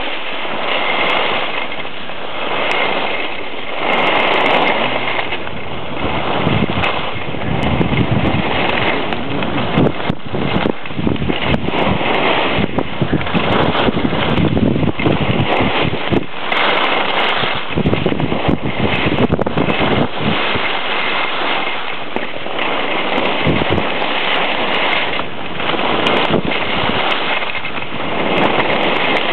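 Wind rushing over the microphone during a ski run downhill, with skis hissing and scraping over the snow and frequent short knocks and crackles.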